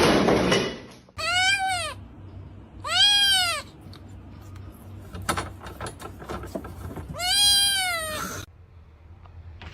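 A cat meowing three times: drawn-out meows that rise and fall in pitch, the last one the longest. A loud rush of noise fills the first second, and a few light clicks fall between the meows.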